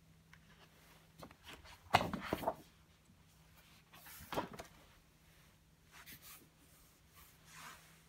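Pages of a wallpaper sample book, vinyl on a non-woven backing, being turned and handled by hand: a loud page flap and rustle about two seconds in, another just after four seconds, then softer rustles. A faint steady hum runs underneath.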